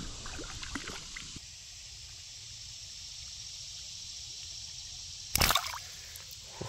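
Water dripping and sloshing around a hand-held sunfish at the river's surface, over the steady faint rush of the current. About five and a half seconds in, a single loud splash as the fish kicks into the water, throwing spray over the angler.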